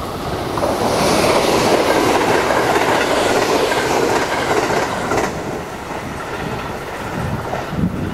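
A JR West 681/683-series limited express electric train passing close by on the track. Its noise rises quickly, is loudest from about one to five seconds in, then eases off.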